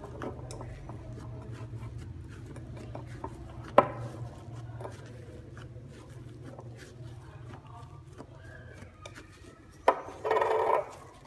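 Fluffy hand-wash slime being squeezed and stretched by hand: soft sticky crackles and small clicks, with a louder, short squelch near the end.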